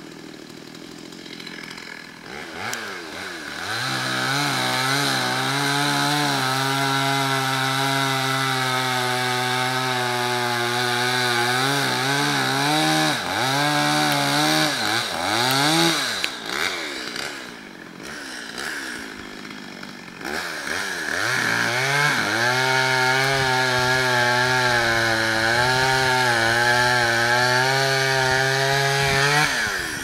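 A small two-stroke chainsaw revving up and cutting into a tree trunk for the back cut, its pitch wavering under load. It eases off twice, drops back for a few seconds midway, then cuts again until it eases off near the end. The back cut was made from both sides because the bar is short for the trunk.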